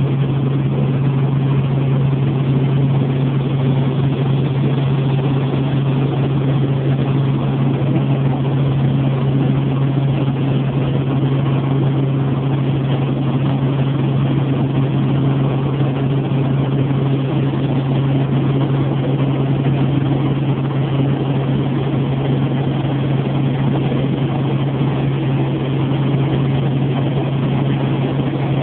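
Helicopter in cruising flight, heard from inside the cabin: a loud, steady drone of engine and rotor, a strong low hum over a constant rushing noise.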